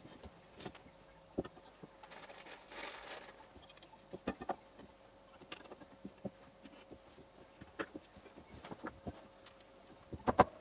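Light, scattered clicks and knocks of steel shafts and 3D-printed plastic corner blocks being handled and pushed together on a work mat. There is a short scrape about three seconds in and a couple of sharper knocks near the end.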